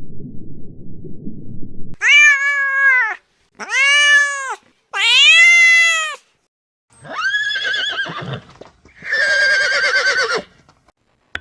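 A domestic cat meowing three times in a row, each meow rising and then falling in pitch, after a low rough rumble in the first two seconds. These are followed by two longer, quavering animal calls with a fast wobble in pitch.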